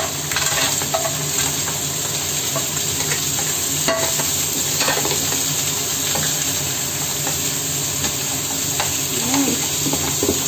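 Large clams sliding into a hot pan of frying onions and stirred with a spatula: the shells click and clatter against the pan over a steady sizzle.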